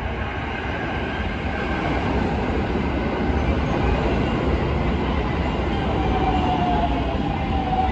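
Rapid Marine Liner electric train pulling into the platform and slowing to a stop, its wheels and running gear rumbling on the rails. Late on, a whine falls slowly in pitch as it brakes.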